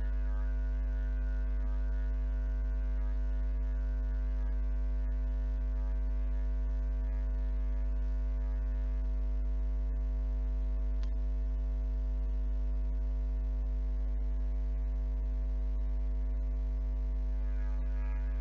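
Steady low electrical hum with several steady overtones, unchanging in pitch and level.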